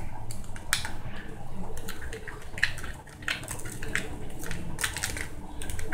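A metal teaspoon clicking and scraping against a small plastic jar as chunky glitter is stirred in, in scattered small ticks.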